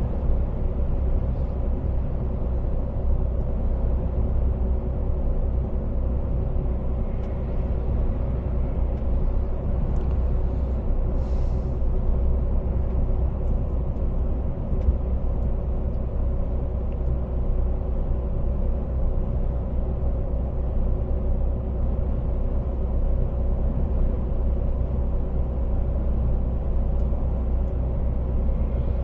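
Truck engine and road noise heard from inside the cab while driving: a steady low drone.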